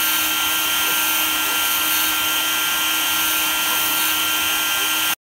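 The spindle of a small 3D-printed GRBL CNC mill runs with a steady high whine while a fine engraving bit carves a relief into wood. It stops abruptly near the end.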